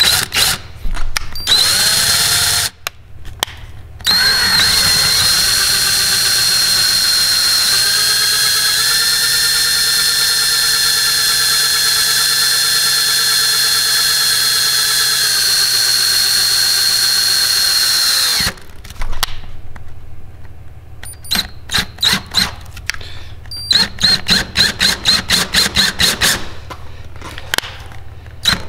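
Power drill turning a hole saw through a boat's fiberglass deck. It comes in short bursts at first, then runs steadily for about fourteen seconds with a high whine, then goes in quick on-off pulses near the end as the trigger is worked.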